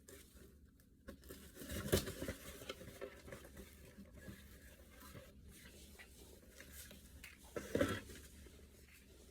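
Faint rustling and handling noises as the new thermostat is handled, with two louder rustles about two seconds in and near the end.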